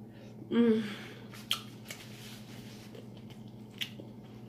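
Mouth sounds of someone eating saucy seafood. A short hummed "mm" comes about half a second in, then a couple of sharp wet smacks as sauce is sucked off the fingers.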